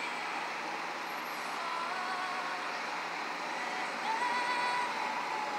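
Steady road and wind noise of a car driving at speed. Faint long held musical notes sound over it, and the loudest note comes about four seconds in.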